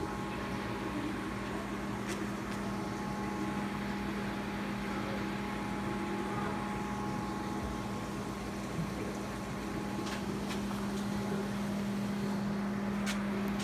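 Steady hum and hiss of running aquarium equipment, a pump or filter, with a few faint clicks.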